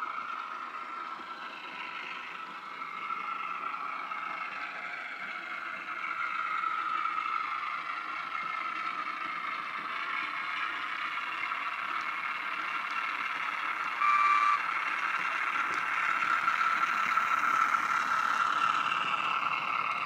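Class 08 diesel shunter engine sound from a Bachmann 08 model's DCC sound decoder, played through its small speaker as the loco runs with its wagons. One short horn note sounds about two-thirds of the way in.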